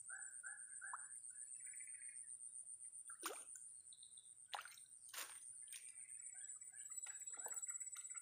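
Faint swamp wildlife at dusk. A steady high-pitched insect drone runs throughout. A quick series of repeated call notes, about three a second, stops about a second in, and a few sharp downward-sweeping calls follow later.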